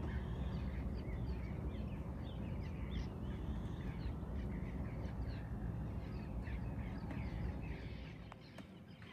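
Many birds calling at once, a busy chatter of short chirps and quick rising and falling notes, over a steady low rumble that eases off near the end.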